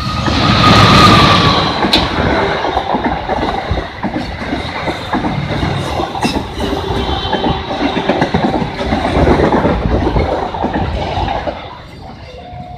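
Diesel locomotive and its passenger coaches passing close by on the rails: a loud rush as the locomotive goes by, loudest about a second in, then the coaches' wheels clattering in a fast, uneven rhythm. The level drops suddenly near the end.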